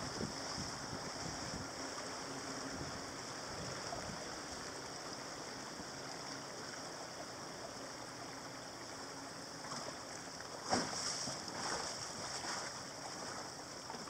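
Water washing along the hull of a sailboat moving under sail, a steady wash of sound. A sharp knock comes about eleven seconds in, with a few lighter knocks after it.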